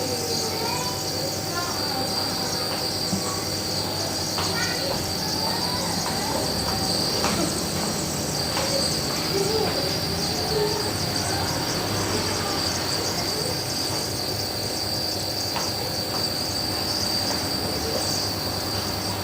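Nebulizer compressor running with a steady hum and a constant high whine, and now and then faint rising and falling vocal sounds from the child being treated.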